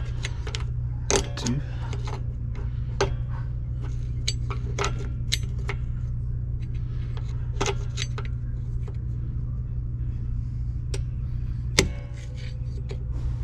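Screwdriver working the star wheel brake adjuster through the access hole in a VW Beetle's front brake drum: irregular sharp metallic clicks and scrapes as the adjuster is turned notch by notch to bring the new brake shoes out toward the drum, over a steady low hum.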